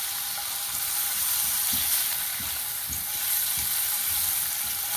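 Sliced mushrooms frying in butter, sizzling steadily as a silicone spatula stirs them, with soft knocks of the spatula against the pan.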